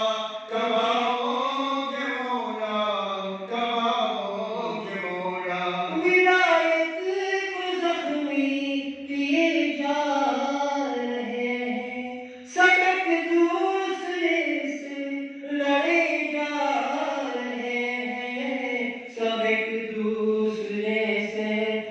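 Men's voices chanting an Urdu devotional munajat (a supplication to the awaited Imam) into microphones. It is a melodic recitation of long, gliding held notes, with a short break for breath about halfway through.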